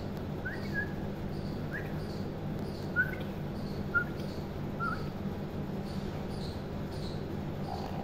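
Alexandrine parakeet giving soft, short chirps, about six in the first five seconds, over a steady low hum.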